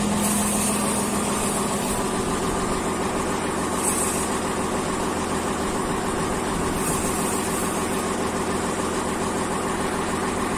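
Shipyard winch engine running steadily at an even pitch, driving the winch that hauls in the steel wire cable.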